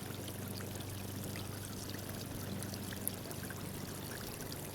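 Water spraying and splashing steadily from a water slide's sprinkler spray, with a steady low hum underneath and a few faint ticks of droplets.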